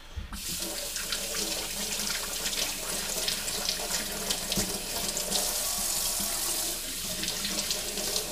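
Kitchen faucet running into a stainless-steel sink, the stream splashing over hands washing under it. The water comes on just after the start.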